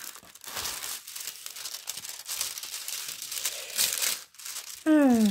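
Clear plastic protective film on a diamond painting canvas crinkling and rustling as hands smooth it flat to take out the creases. Near the end, a brief voice sound that falls in pitch, louder than the rustling.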